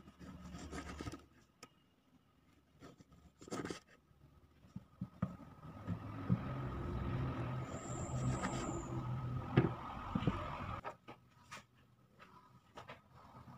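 Kitchen knife slicing a tomato on a wooden cutting board, with a few sharp knocks of the blade against the board. Under it, a low engine-like hum comes in about halfway through and cuts off suddenly near the end.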